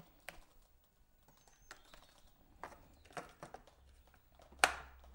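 Light plastic taps and clicks as a two-part replacement filter is handled and seated in the top of a Vax Mach cylinder vacuum cleaner. Near the end there is one sharp, louder click as it snaps into place.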